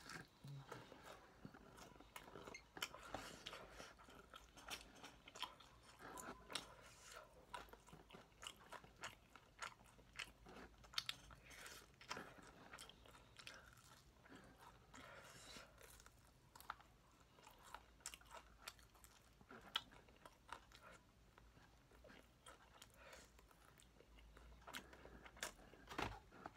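Quiet, close-up biting and chewing of crispy honey-glazed fried chicken, with many small, irregular crunches of the coating.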